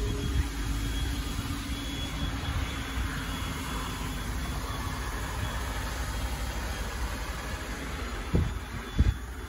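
An engine running steadily at idle, a constant low rumble, with two short knocks near the end.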